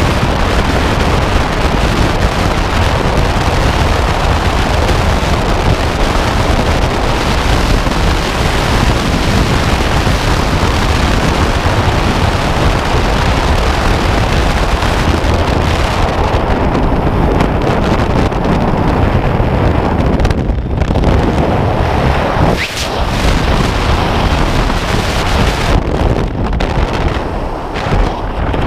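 Freefall airflow rushing over a skydiver's camera microphone: a loud, steady roar of wind noise, its hiss thinning a little about halfway through.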